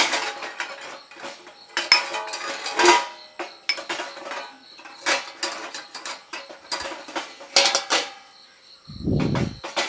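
Dishes and cutlery in a loaded dishwasher's racks clinking and rattling as they are handled, with many short clicks, some ringing briefly. A brief low rumble comes near the end.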